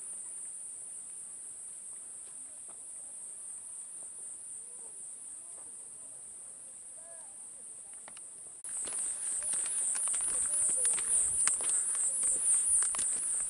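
A steady, high-pitched chorus of insects trilling in mountain forest. About two-thirds of the way through it abruptly turns louder and pulsing, with close clicks and rustles of walking.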